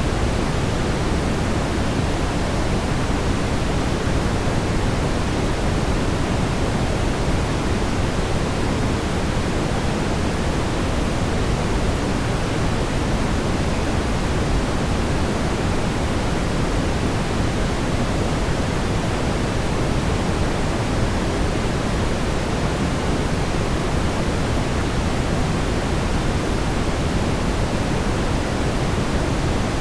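Steady brown noise: an even, unbroken rumbling hiss, strongest in the low end and fading toward the highs.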